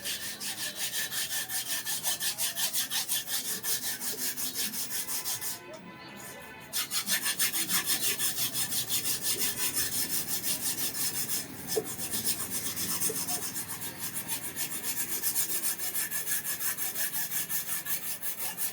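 Steel iron boti blade being hand-finished with fast back-and-forth rasping strokes, about three a second, with a faint metallic ring. The strokes pause for about a second roughly five and a half seconds in, and stop briefly again about eleven seconds in.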